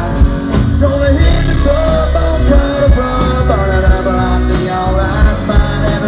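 A live country band playing loud on a concert sound system: electric guitar, bass and a steady drum beat, with a sung melody over them.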